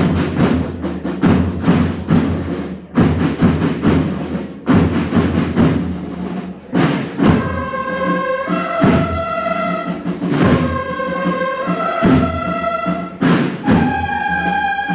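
Spanish Holy Week processional band music: drums beating a steady march rhythm, joined about halfway by brass playing a slow melody of long held notes over the drums.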